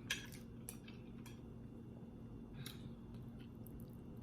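Faint, scattered clicks of chopsticks knocking together and against a bowl, handled clumsily by someone still learning to use them.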